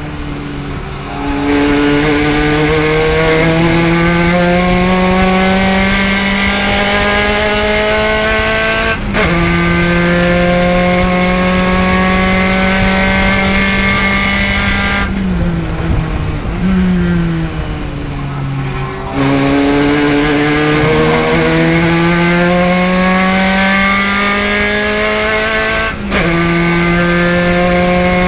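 Spec Racer Ford's engine heard on board, climbing in pitch under full throttle, with a brief break for a clutched H-pattern upshift about nine seconds in and again near the end. Midway it lifts off and the pitch falls for about four seconds as the car slows, with a short rise in pitch partway through, before it pulls up through the revs again.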